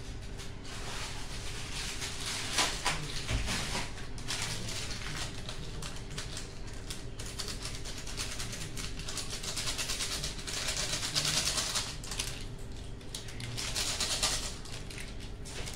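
Hot oil sizzling and crackling as anchovy fritters (ukoy) fry, a dense steady crackle that swells louder three times.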